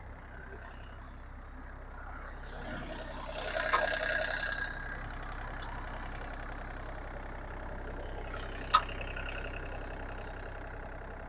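KIOTI MX350 compact excavator's diesel engine idling steadily, with a louder, whining stretch about three to five seconds in. Two sharp clicks stand out, one about four seconds in and one near nine seconds.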